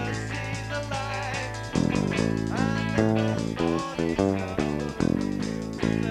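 Rock band playing an instrumental passage on electric guitar and bass guitar, with changing chords and a few bent guitar notes, in a poor-quality live recording.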